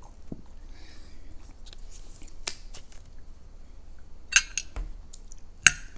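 A few short, sharp clicks and taps of tableware, the loudest just before the end, with a soft squirt from a squeezed bottle of ranch dressing about a second in.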